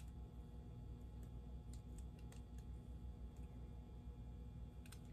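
Small, irregular clicks and ticks of fingers working at the metal frame and parts of a model diesel locomotive, over a low steady hum.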